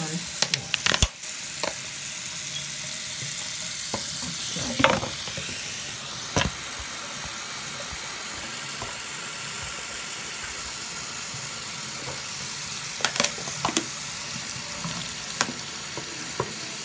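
Bathroom sink faucet running steadily as a plastic water bottle is filled from it. Scattered short clicks and knocks break in, a cluster about a second in, single ones near the middle and another cluster near the end.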